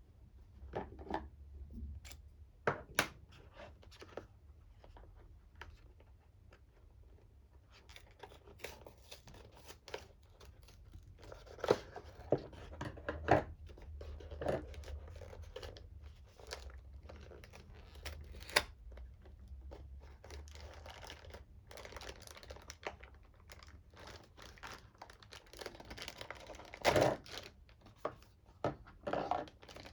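Packaging being handled and opened: wrapping crinkling and tearing, with scattered sharp clicks and knocks; the rustling thickens after the first several seconds.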